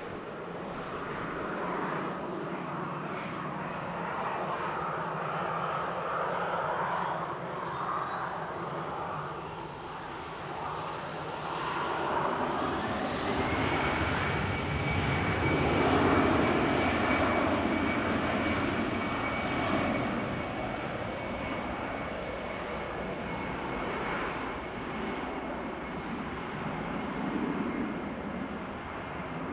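Airbus A319 turbofan engines running with a steady whine over a low rumble. About a third of the way in, the whine rises in pitch and grows louder as thrust is added, then holds at the higher pitch.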